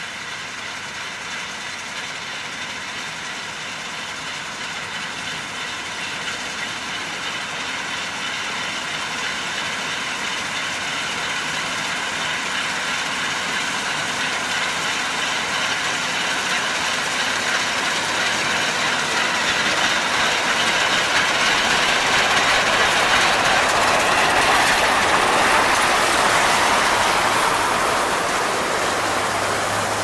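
Massey Ferguson 510 combine running while harvesting soybeans, its engine and threshing machinery giving a steady mechanical rattle and drone. It grows steadily louder as the combine comes near, peaks about 25 seconds in as it passes close by, then eases slightly.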